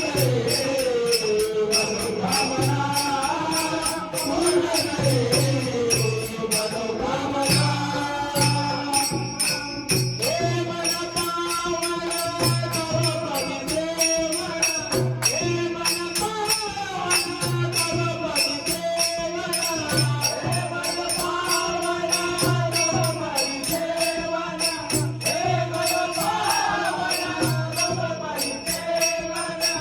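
Bhajan music: small hand cymbals keep a steady fast beat, a drum plays a short low pattern that repeats every two to three seconds, and a wavering melody line runs over them.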